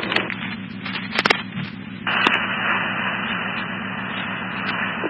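Fire-department radio scanner between voice transmissions: a low hum with a few faint clicks, then about two seconds in a channel opens with no voice, giving a steady radio hiss with a faint steady tone that cuts off abruptly near the end.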